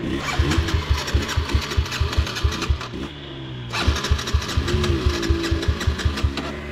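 Dirt bike engine running at low speed with an even pulsing beat, about five beats a second, a little busier from about four seconds in.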